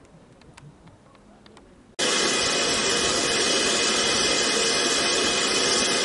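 A few faint clicks over quiet ambience. About two seconds in, a loud, steady hiss of escaping steam starts abruptly from a standing BR Standard Class 5 4-6-0 steam locomotive, no. 73082.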